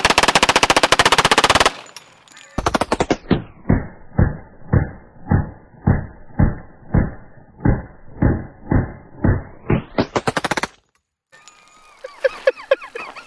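A 1911 pistol converted to full auto, in .45 ACP, fires one very fast burst from a drum magazine, lasting under two seconds. The same burst then plays back slowed down: the shots become deep, muffled booms about two a second.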